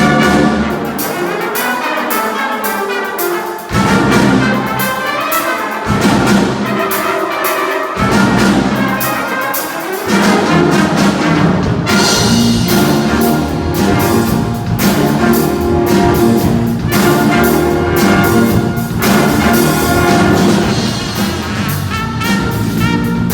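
Funk music: a horn section of trumpets and trombones playing over a steady drum-kit groove, with the bass dropping out at moments before the full band comes back in about ten seconds in.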